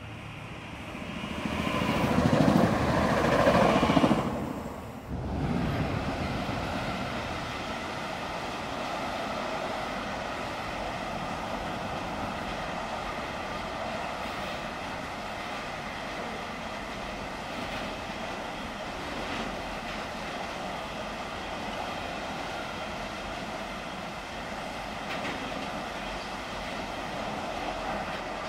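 A passenger train passes close by at speed, swelling to its loudest about four seconds in and dropping away suddenly. A long container freight train then rolls past steadily, its wagons running over the rails without letup.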